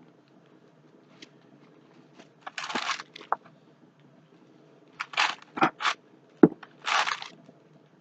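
Plastic packaging being handled, crinkling and crunching in several short bursts, with one sharp click about six and a half seconds in.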